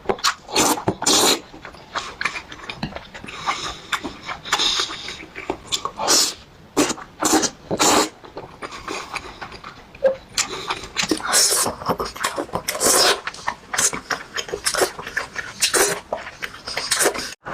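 Close-miked eating sounds: a person chewing and smacking, with mouth noises coming in quick, irregular bursts.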